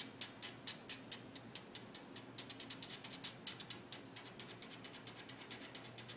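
A fine-tip ink pen scratching on paper in quick, short back-and-forth hatching strokes, several a second, to fill in and darken the fur. The strokes come faster and closer together midway.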